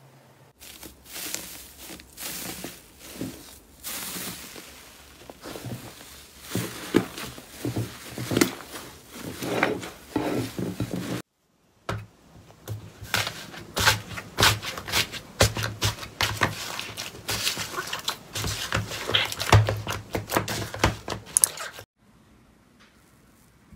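Slime covered in crinkled metal foil crackling and crinkling as fingers press into it, in quick irregular clicks. After a brief silent cut, slime in a plastic container crackles and pops under pressing hands.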